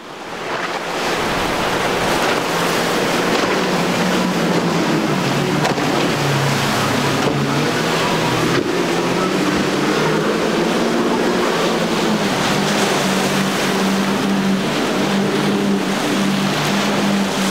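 Quad outboard engines of a center-console boat running at speed through rough water, a steady engine drone over the rush of spray and waves. The engine note drops about six seconds in and climbs again later. The sound fades in at the start.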